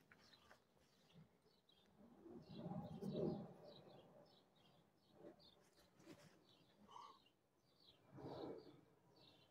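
Faint bird chirping, a steady run of short high chirps about two or three a second. Two low, muffled swells of noise come through, the louder about three seconds in and another near the end.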